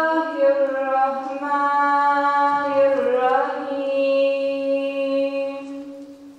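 Choir singing an ilahija, a Bosnian Islamic devotional song, in unison with long held notes. The last note fades out about six seconds in.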